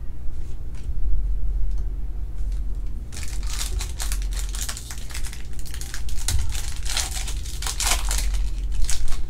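Plastic wrapper of a Panini Select trading-card pack being slit, torn open and handled, a dense crackling that starts about three seconds in after a few faint clicks of cards being handled.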